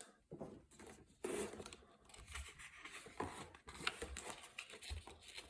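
Faint rustling and light scratching of paper with scattered small clicks: the pages of a picture book being handled.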